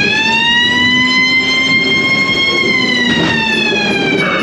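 Ghost-train sound effect: a loud, siren-like wail that rises in pitch, holds steady for a couple of seconds, then slowly falls away.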